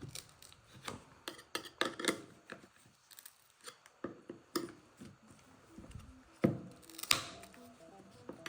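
An opening tool prying and scraping at an iPhone 6 Plus battery stuck down by strong adhesive, with scattered clicks and scrapes and two louder knocks about six and a half and seven seconds in.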